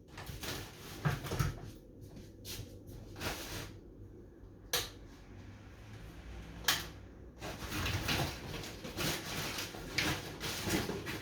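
Things being moved about by hand: a string of knocks and clicks, two sharper knocks about halfway through, then steady rustling and shuffling from about two-thirds of the way in.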